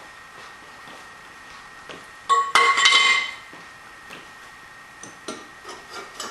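Metal clanking and clinking with a short ringing tone as the mounting pole of a pistol-mount rig is fitted into its seat-plate socket, loudest about two seconds in, followed by a few lighter clicks and taps near the end.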